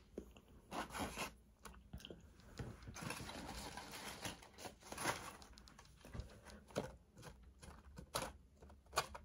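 A person chewing food close to the microphone: faint mouth and chewing sounds with scattered soft clicks and short crunches.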